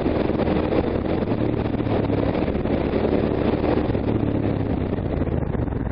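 Steady engine and road noise of a moving motor vehicle, with a low hum from the engine.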